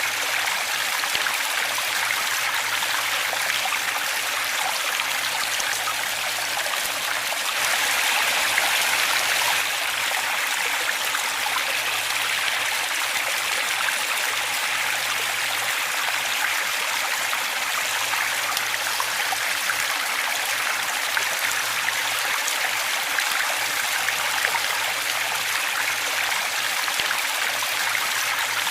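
Waterfall and running water rushing and splashing steadily, swelling slightly for a couple of seconds about eight seconds in.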